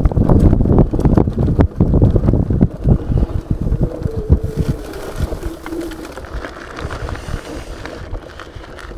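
Heavy wind buffeting on a small action camera's microphone, with rapid knocks and rattles from an off-road electric scooter riding over rough grass. The noise dies down over the second half as the scooter slows.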